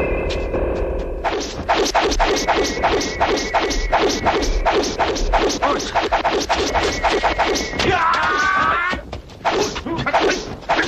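Rapid volley of dubbed martial-arts film fight sound effects: punch and kick whacks and thuds, several a second. They start about a second in and break off around eight seconds, with a few more hits near the end.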